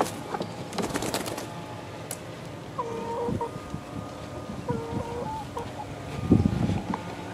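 Young chickens, 11-week-old pullets, giving short level calls about three seconds in and again near five seconds, with rustling and clicks from the birds at the start. A louder low thump comes a little after six seconds.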